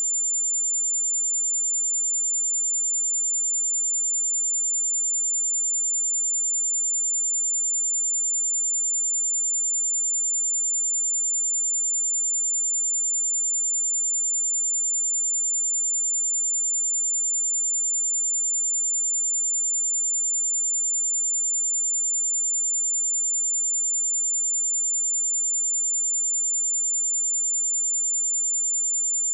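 A pure 7195 Hz sine-wave test tone, a single steady high-pitched whistle held at constant level without a break.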